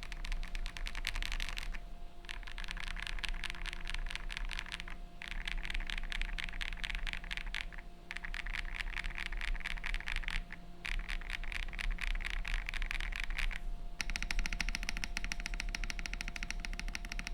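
Fast typing on a mechanical keyboard (Akko 5075B with Akko x HMX Cilantro light tactile switches): quick runs of keystrokes broken by brief pauses, turning denser and more even near the end.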